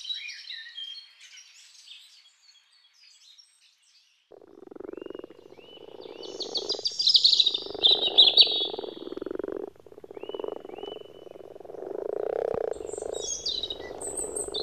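A chorus of frogs croaking in rapid pulses, the breeding calls of frogs gathered at a pond to spawn, starting about four seconds in. Small birds chirp over them at the start, in the middle and near the end.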